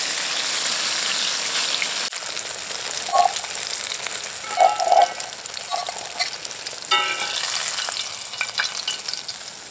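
Battered walleye pieces sizzling as they fry in oil in a skillet, with a few light metallic clinks of a fork turning them in the pan.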